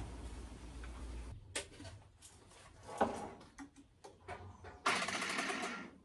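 Clicks and knocks of battery cables and tools being handled at battery terminals, with a low hum that stops about a second in. Near the end comes a rapid mechanical rattle lasting about a second.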